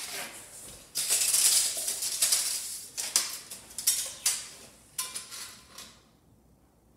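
Steel tape measure being handled and run against a toilet base: rattling, scraping handling noise for a couple of seconds, then several sharp clicks, dying away near the end.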